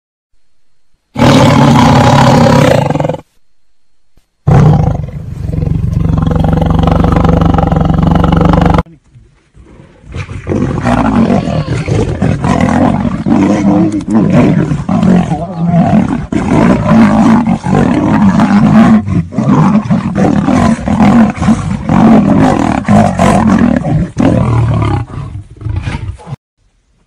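Big cats roaring: two long, loud roars, then a long stretch of rough snarling and growling as in a fight, which cuts off suddenly near the end.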